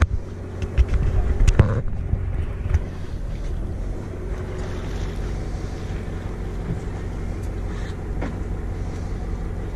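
Wind buffeting the camera microphone over a steady low rumble aboard a drifting fishing boat, with a few sharp knocks in the first couple of seconds.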